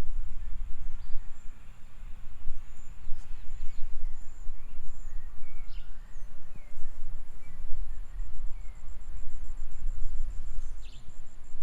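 Tropical birds giving scattered short chirps and whistles over a thin, high insect drone that turns into a rapid, even pulsing trill about halfway through. A loud, uneven low rumble runs underneath.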